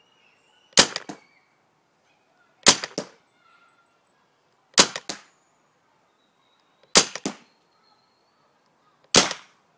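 RAP4 T68 paintball pistol, running on a bottle-line air adapter, firing five single shots about two seconds apart. Each shot is a sharp crack followed a moment later by a second, weaker snap.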